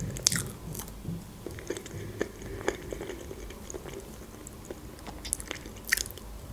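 Close-miked mouth sounds of a person chewing soft cake and banana, with scattered small clicks and a sharper click near the end.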